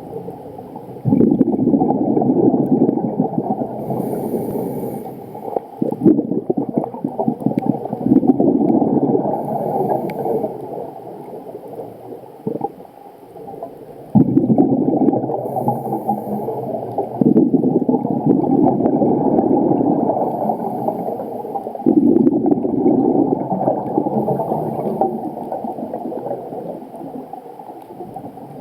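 Scuba diver breathing underwater through a regulator: exhaled bubbles gurgle in loud bursts of two to three seconds every few seconds, with short faint hisses of inhalation between them.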